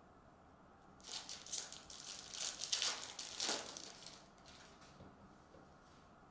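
Foil wrapper of a Panini Mosaic soccer card pack crinkling as it is torn open and the cards are slid out, starting about a second in and dying away after about three seconds.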